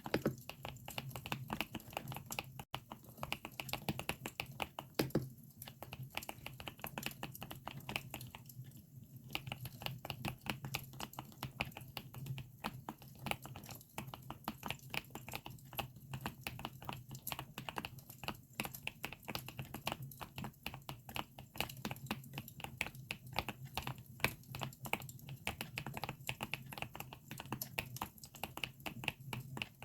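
Mechanical keyboard (GMK67 with Akko Lavender switches) being typed on in a steady stream of clacking keystrokes, pausing briefly a couple of times, layered with the crackle of a campfire. A low steady hum runs underneath.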